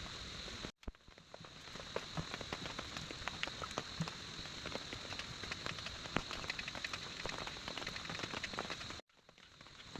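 Steady rain with many separate drops tapping. The sound cuts out suddenly twice, about a second in and near the end, and fades back up each time.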